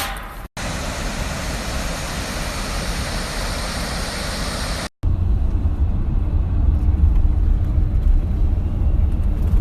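A steady rushing noise, cut off sharply about five seconds in. It gives way to the steady low rumble of road noise heard from inside a moving car.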